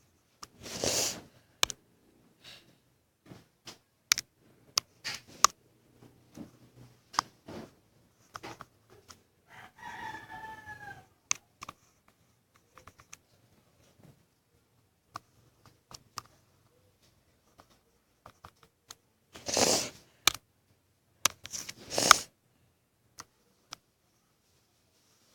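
Drawing on paper: scattered light taps and scratches of a drawing tool. Three louder noisy bursts of about half a second each come near the start and twice near the end. About ten seconds in there is a brief faint call that falls in pitch.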